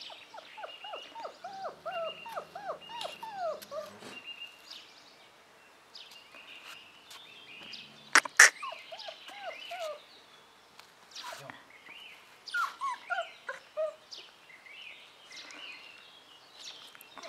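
Bernese mountain dog puppies yipping: quick runs of short, high rising-and-falling yelps in three bouts. Two sharp, loud clicks come about eight seconds in.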